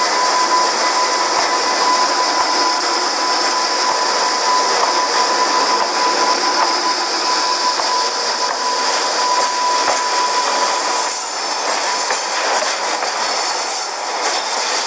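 Dubbed-in running sound of a JR Freight EH200 electric locomotive hauling tank wagons: steady rail and running noise with a high steady whine that fades out about eleven seconds in.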